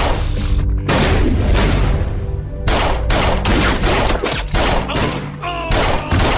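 Film sound effects of gunfire: repeated bursts of shots over a dramatic background score with sustained low notes.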